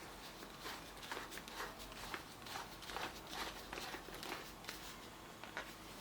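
Faint, irregular clicks and rustles of things being handled, several a second.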